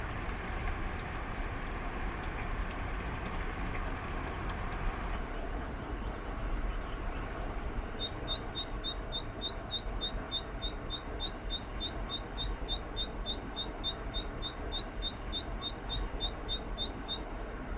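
Zitting cisticola singing: a quick, even series of short, sharp high notes, about four a second, starting about eight seconds in and stopping near the end. Under it is a steady low background noise of rain.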